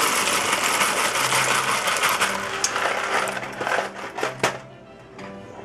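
Dry penne pasta pouring out of its cardboard box into a pot of boiling water, a dense continuous rattle. It stops about four seconds in, followed by a single click.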